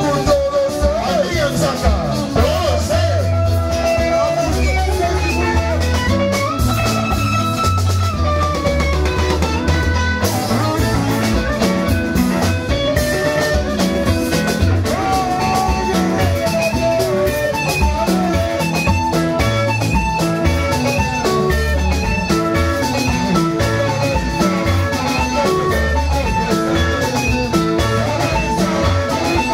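Live Congolese rumba band music: electric lead guitar playing melodic runs, with a few bent notes near the start, over bass and drums.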